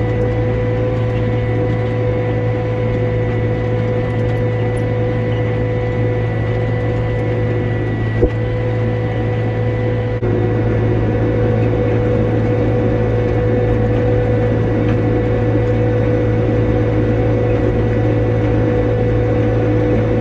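Tractor engine running steadily, with a steady whine over the low drone and a single sharp click about eight seconds in.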